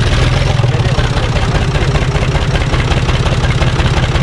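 UTB Universal 445 DT 4x4 tractor's diesel engine idling steadily with an even, fast pulse, freshly started.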